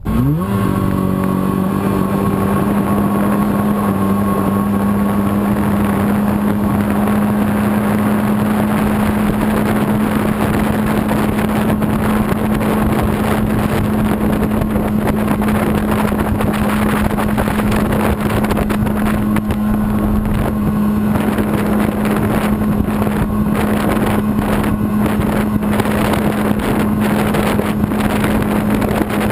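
Jet boat driven by a Kawasaki 750SS two-stroke twin jet-ski engine, running under way. The engine comes in suddenly and rises in pitch for a moment, then holds one steady speed over the rush of water and wind.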